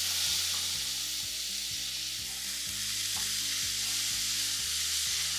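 Chopped onions hitting hot oil with cumin, green chillies and curry leaves: a sudden loud sizzle that keeps frying steadily while a spatula stirs them around the pan.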